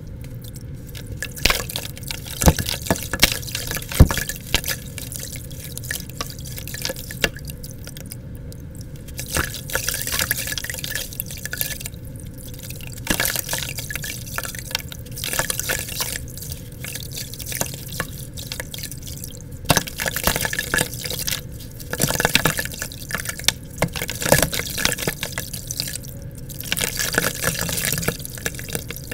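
Gritty red dirt crumbled by hand into a plastic bucket of water: irregular splashes and drips as the crumbs fall in, then wet dirt squeezed and worked in the hands in the water.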